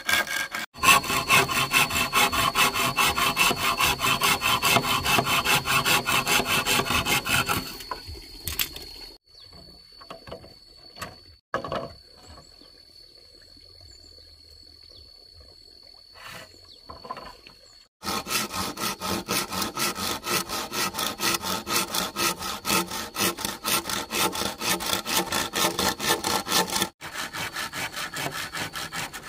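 Hand saw cutting through a green bamboo pole in quick back-and-forth strokes. The sawing stops for about ten seconds near the middle, leaving only a few knocks and a faint steady high tone, then starts again.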